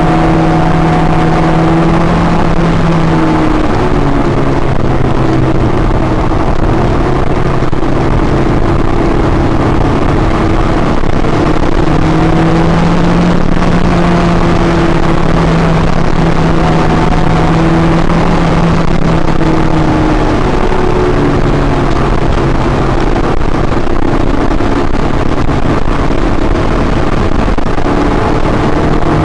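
Honda S2000's four-cylinder engine heard from inside the cabin, running hard at speed, its pitch stepping up and down with throttle and gear changes, over a steady hiss of wind and road noise.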